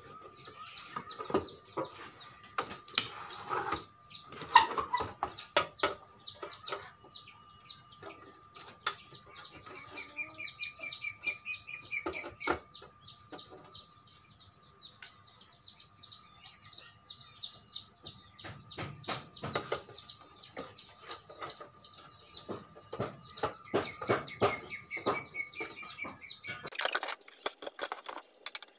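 Birds chirping steadily in the background, many short falling chirps, with sharp knocks and clicks from a metal amplifier case being handled and turned over on a wooden table; a brief rattling clatter near the end.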